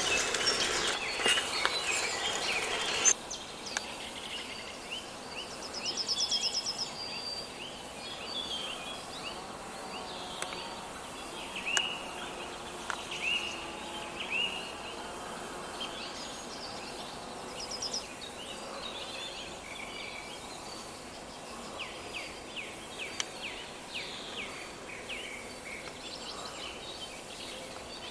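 Summer forest birds chirping and singing over a steady background hiss: many short, separate calls and now and then a fast, high trill. For the first three seconds a denser, louder chorus plays, then it cuts off abruptly and the calls continue more sparsely.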